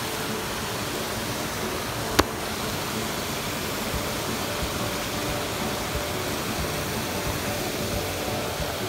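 Steady rush of a shallow, rocky creek running over stones, with one sharp click about two seconds in.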